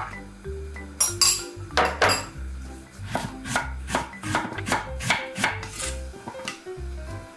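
Kitchen knife chopping Korean radish on an end-grain wooden cutting board: a few loud knocks, then a quicker run of chops at about three or four a second, over background music.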